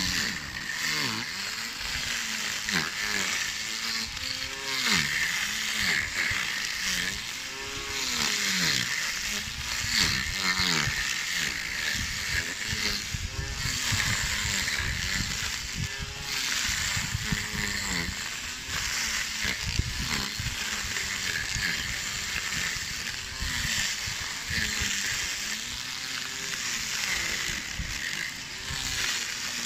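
Small cordless electric grass trimmer running and cutting grass, its motor pitch rising and falling again and again as the head is swept into the grass and out.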